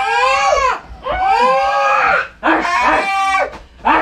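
A person's loud, high-pitched screaming cries, four long ones in a row, each rising and then falling in pitch.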